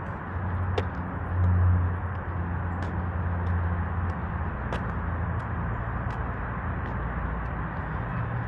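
Steady outdoor background hum: a low drone over a wash of noise, with scattered faint ticks.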